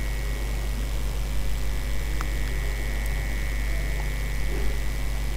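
Steady low electrical hum with a thin high whine and faint hiss, the recording setup's own noise, with a few faint clicks.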